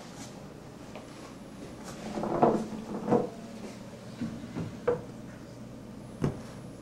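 A few light knocks and taps from handling, spread out with gaps between them, the loudest about two and a half seconds in.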